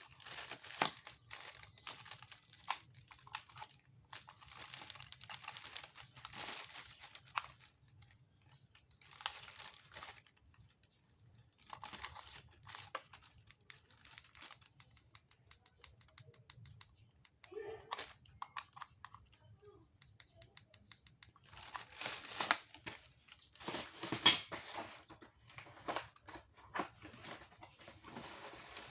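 Packaging being crinkled and torn open by hand, in irregular bursts of rustling with sharp clicks and short pauses between.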